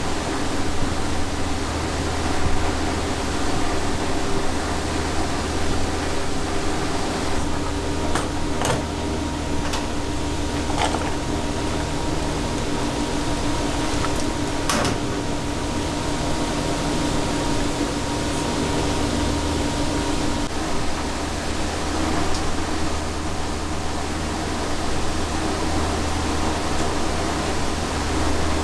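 Steady noise of a working ramen kitchen, with cookers and ventilation and a low hum throughout. A few sharp clinks of utensils come between about a third of the way in and halfway.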